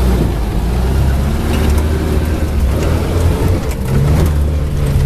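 UAZ 469's original Volga 2.5-litre four-cylinder OHV engine pulling hard in four-wheel drive, taking a slope; a slightly higher engine note joins about four seconds in.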